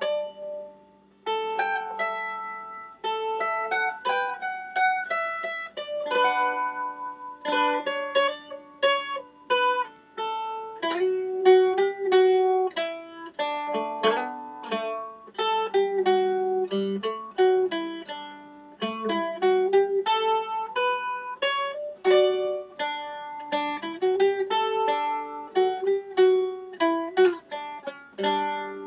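Solo mandolin playing a slow tune in picked single notes and strummed chords, with some held notes sustained by rapid tremolo picking.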